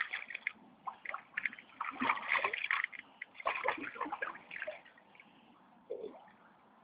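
A hooked carp splashing and sloshing at the water's surface as it is drawn into a landing net, in irregular bursts over the first five seconds or so before it goes quieter.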